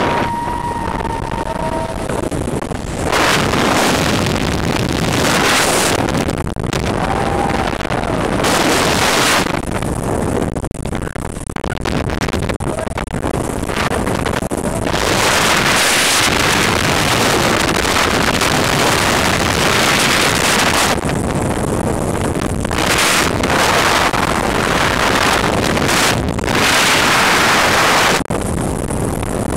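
Wind buffeting the microphone in uneven, surging gusts while hanging in a heli-sling beneath a flying helicopter, with the helicopter's engine and rotor noise running underneath.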